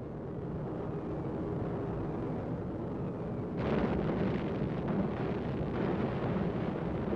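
Low, steady drone of heavy bomber engines, joined about three and a half seconds in by a louder, rougher rumble of bombs exploding.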